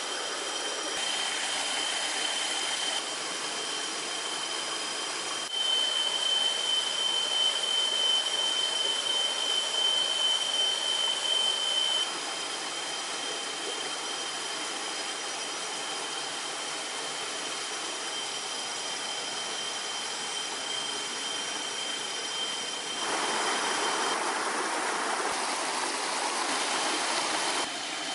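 Steady forest ambience: a continuous high-pitched drone with fainter higher tones, typical of tropical insects, over an even rushing noise, stepping louder and quieter abruptly several times. Water is poured into a stainless steel pot near the start.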